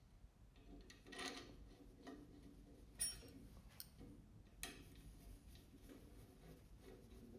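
A few faint scattered clicks and light knocks, the sharpest about three seconds in, with a short rustle a little after one second.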